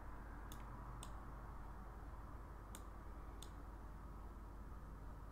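Computer mouse clicking four times, sharp single clicks a second or so apart, over a low steady hum of room and microphone noise.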